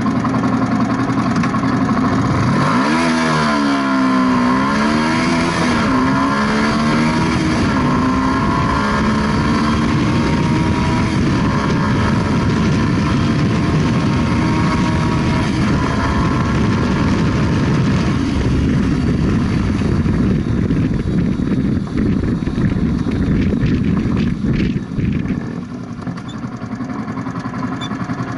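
Yamaha YZF-R125's 125 cc single-cylinder four-stroke engine under hard acceleration from a standstill. After a few seconds of running, its pitch climbs and falls back several times in quick succession, then rises more slowly and holds high. About 25 seconds in, the engine note eases and gets quieter.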